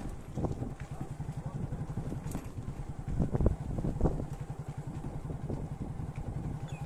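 Motorcycle engine running at low speed with a steady low pulsing, heard from the bike itself. A couple of louder thumps come about three to four seconds in.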